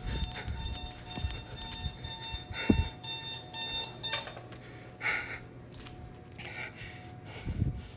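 An electronic alarm beeping in a fast repeating pattern of high tones, clearest in the first half, with one sharp thump about a third of the way in and a few brief rustles later.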